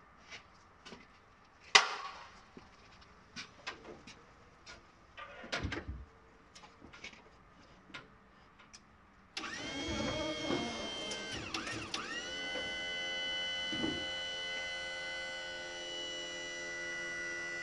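Scattered knocks and clunks, one sharp knock about two seconds in, as a motorcycle is handled onto a steel lift platform. About nine seconds in, the electric pump of a Ricon K-series hydraulic wheelchair lift starts abruptly and runs with a steady whine as the platform rises, its pitch dipping briefly a few seconds after starting.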